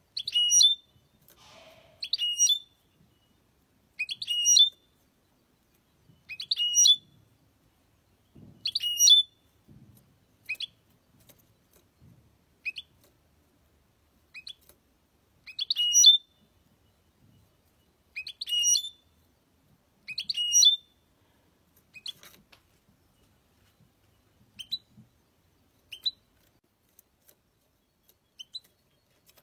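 Caged European goldfinch singing: short, high, twittering phrases repeated about every two seconds. In the last several seconds they thin to brief, fainter single notes.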